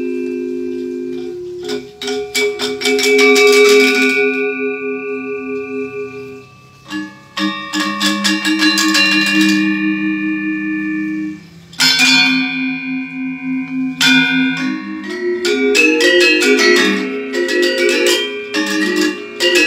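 A pair of Balinese gendèr wayang, bronze-keyed metallophones struck with mallets, playing interlocking parts: long ringing low notes under runs of quick high strikes. The playing breaks off briefly twice and grows denser over the last few seconds.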